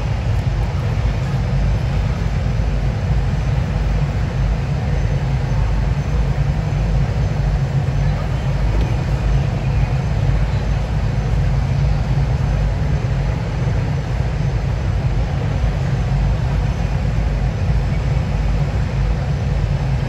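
Steady low rumble of a recorded waterfall played through the speakers of a digital waterfall display, unbroken and without distinct events.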